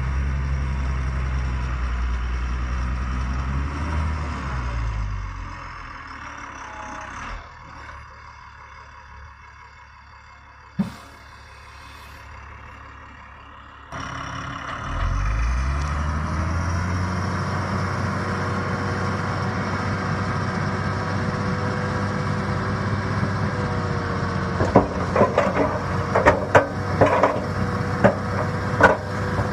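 Backhoe loader's diesel engine running, dropping to a quieter idle about five seconds in, then revving back up around fifteen seconds and holding steady. There is a single sharp click near the middle, and a run of clanks and knocks over the last five seconds.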